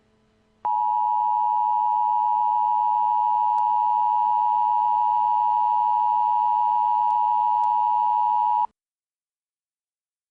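Emergency Alert System attention signal: a loud, steady two-tone alert tone (853 and 960 Hz) that starts just under a second in, holds for about eight seconds and cuts off abruptly, signalling that an emergency message follows.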